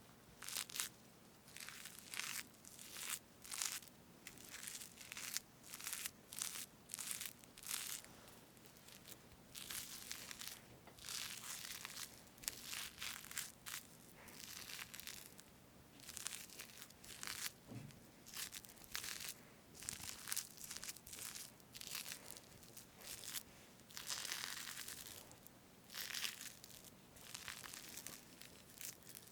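Fresh whipped cream on a strawberry cake being parted and split, making soft crackling and squelching sounds in many short, irregular strokes, a few each second.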